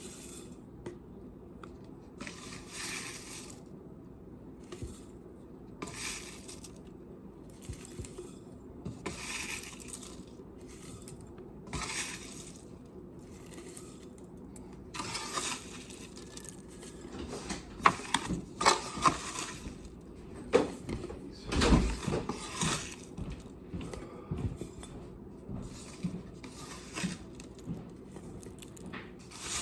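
Dried herb leaves rustling and crackling as they are handled and packed into glass jars, in short bursts every second or two, with glass clinks and knocks from the jars; the sharpest clinks and a dull knock come a little past the middle.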